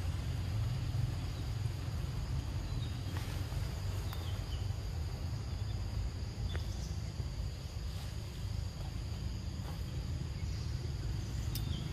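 Steady high-pitched insect drone over a continuous low rumble, with a few faint short chirps and clicks.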